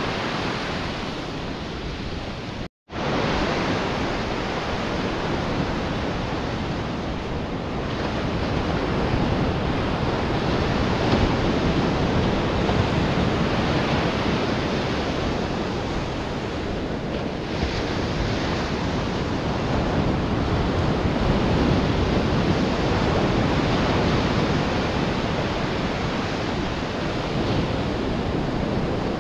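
Ocean surf breaking and washing up the beach, a steady rushing noise mixed with wind on the microphone. The sound drops out completely for a moment about three seconds in.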